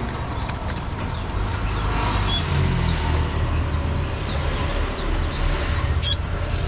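Many small caged songbirds chirping and calling in quick short notes, over a steady low rumble of road traffic.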